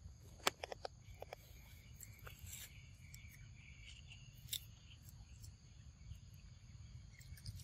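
Faint, steady drone of forest insects, broken by a few sharp clicks: a cluster in the first second and a half and a single one past four seconds in, from a macaque biting into a hard green fruit.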